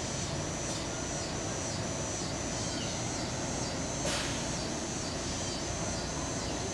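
Rotem Silverliner V electric commuter train moving slowly through the station with a steady low rumble and hum. A high, even chirping pulses about three times a second over it, and a short hiss sounds about four seconds in.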